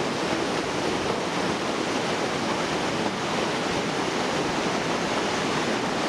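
A fast rocky river rushing through whitewater rapids over boulders: a steady, even rush of water.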